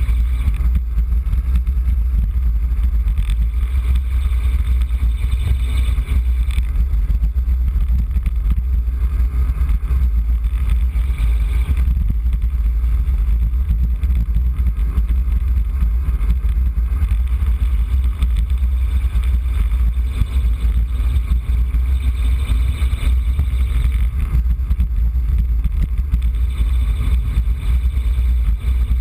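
Wind buffeting the microphone of a road bike's camera during a fast descent: a loud, steady low rumble, with the hiss of tyres on wet pavement rising and falling over it.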